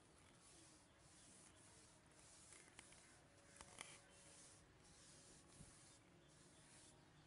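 Faint hiss of a cotton polishing pad charged with shellac rubbing over a varnished wooden bed panel in repeated strokes, with a light tick or two near the middle; the shellac coat is being built up towards a gloss.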